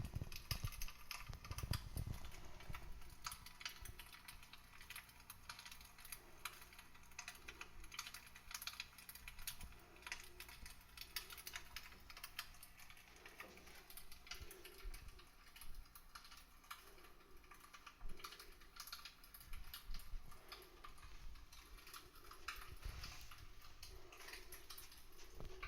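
Small wood fire in a homemade fire-pit stand crackling: faint, irregular pops and snaps throughout, with a few low bumps in the first two seconds.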